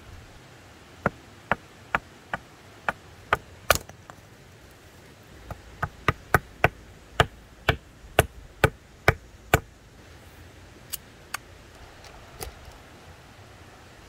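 Knife blade chopping into a dry branch laid across a rock: sharp wooden knocks, first a run of seven about half a second apart, then about a dozen quicker strikes, then a few scattered ones near the end.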